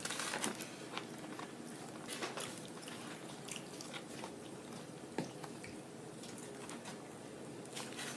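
Close-up eating sounds: biting and chewing fried fish and fries, with scattered small irregular clicks and crunches.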